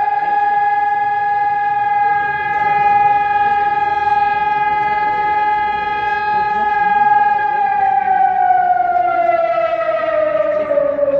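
Civil defense siren sounding one steady tone, then winding down and falling in pitch over its last few seconds.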